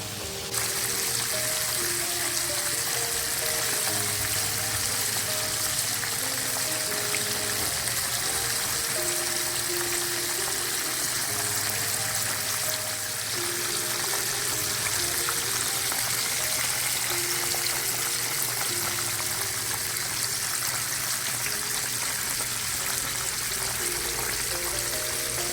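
Chicken quarters deep-frying in oil: a steady, even sizzle that starts up about half a second in, with background music playing a slow melody over a bass line.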